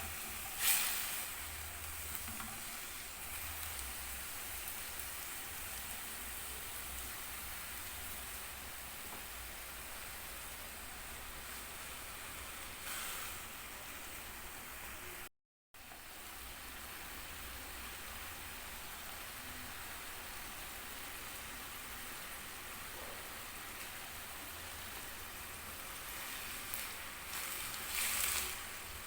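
Food sizzling as it fries in a pan, a steady hiss, with a sharp sound about a second in and louder crackling near the end. It breaks off to silence for a moment halfway.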